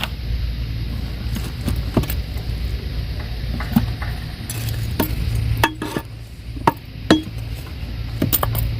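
Dry, crumbly compost being dug and handled in a clay pot: irregular light clinks and knocks scattered through, over a low steady hum.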